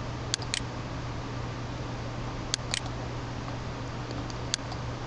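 Computer mouse clicking: a few sharp clicks, two close pairs about two seconds apart and then a single one, over a steady low hum and hiss from the microphone.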